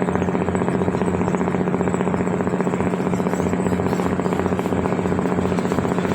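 Ship's diesel engine running steadily through its exhaust, a loud constant drone with a fast, even pulsing throb.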